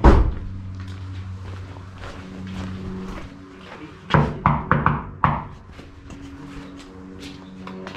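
A loud thump at the start, then a quick run of about five knocks on an iron-and-glass front door about four seconds in, over a low steady hum.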